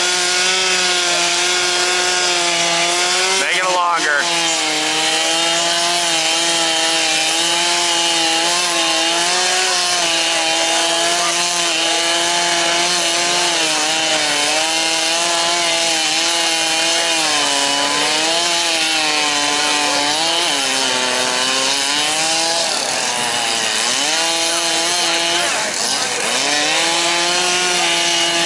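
A small motor running steadily at a high pitch that wavers slightly up and down.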